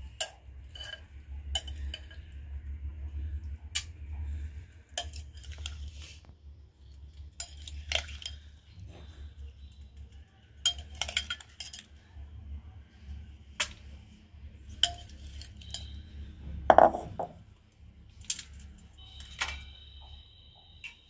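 Steel spoon clinking and scraping against a glass bowl and a steel strainer as soaked amla pieces are scooped across: irregular sharp clinks, roughly one every second, the loudest about seventeen seconds in, over a low steady hum.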